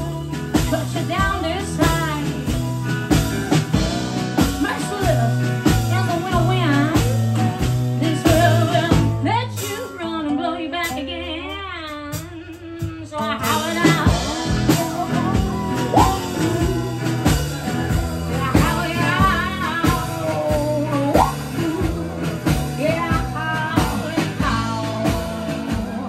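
Live blues-rock band playing: drum kit, bass, acoustic guitar and lap steel guitar. About ten seconds in, the drums and bass drop out for a few seconds, leaving one wavering held melody line, and then the full band comes back in.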